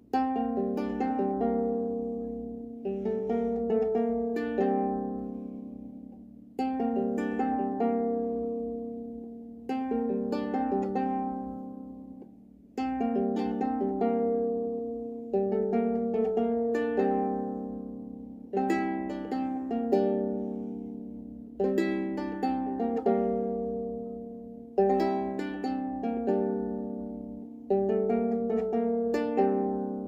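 A Trossingen lyre, a six-string early medieval lyre, played solo. Plucked and strummed chords ring out and die away, with a fresh strum roughly every three seconds.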